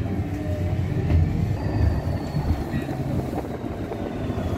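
Ride noise inside a moving city transit vehicle: a steady low rumble with a few small jolts, and a faint high squeal gliding slowly down in pitch from about a second and a half in.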